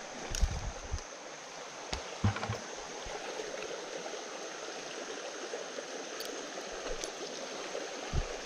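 Small rocky creek flowing steadily, a constant rush of water over stones, with a few brief knocks from handling close by in the first few seconds.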